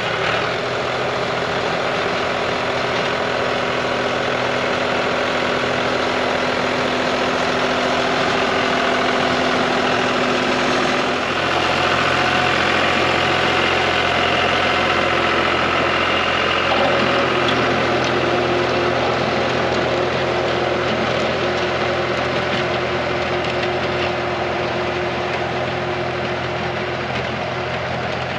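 John Deere 5055D tractor's three-cylinder diesel engine running steadily under load while driving a rotary tiller through the soil. The engine note changes about eleven seconds in and again around seventeen seconds.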